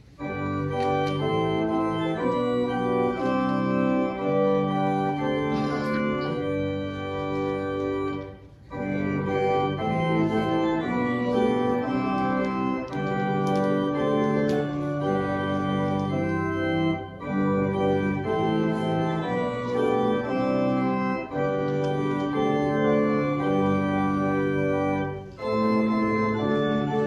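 Church organ playing slow, sustained chords, the notes held and moving in steps, with three short breaks between phrases.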